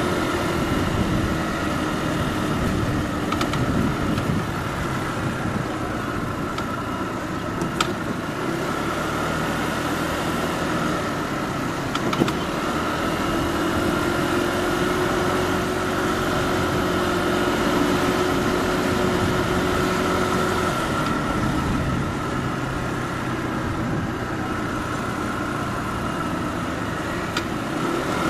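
Motorbike engine running steadily while riding through town traffic, its pitch dipping and rising a little with speed, with two brief clicks.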